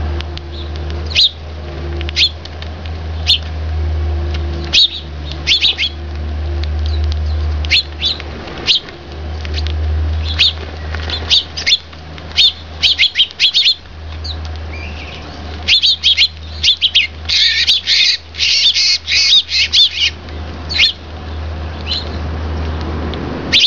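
Eurasian tree sparrows chirping in short, high notes, singly and in quick twos and threes, with a dense run of chirps a little past the middle. A low steady rumble runs underneath, dropping out briefly now and then.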